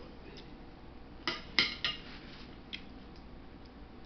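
A metal fork clinking against a dinner plate, three quick clinks about a second and a half in as it is set down, with a couple of fainter taps around them.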